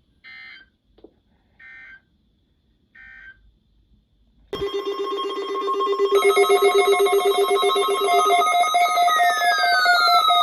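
Three short bursts of Emergency Alert System digital data, the end-of-message code that closes the weekly test. About four and a half seconds in, a loud electronic ringing starts: many steady tones at once, more joining a second or so later, and tones sliding down in pitch near the end.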